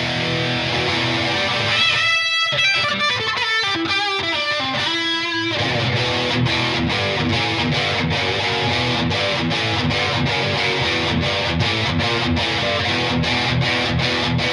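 JP100 electric guitar played through a distorted tone: a fast run of single notes descending from about two seconds in, then a rhythmic chugging riff of sharply picked, evenly cut-off notes.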